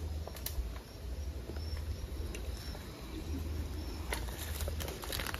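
Outdoor ambience: a steady low rumble on the microphone, with faint short high chirps of insects or birds and a few small clicks.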